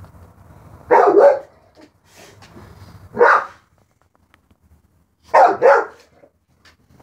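A dog barking loudly at a cat: one bark about a second in, another about two seconds later, then a quick double bark near the end.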